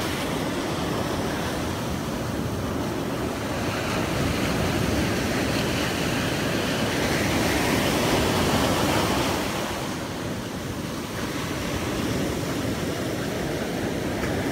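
Ocean surf breaking and washing up a sand beach: a continuous rush that grows louder about halfway through and eases a few seconds later.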